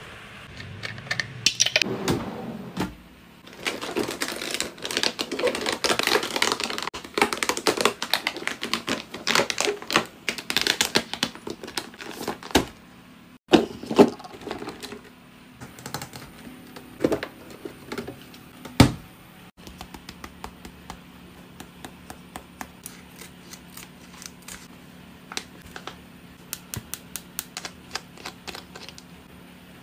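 Makeup products handled close to the microphone: dense rapid tapping, clicking and crackling, then a few louder knocks and sparser quick clicks, with a fast run of clicks near the end.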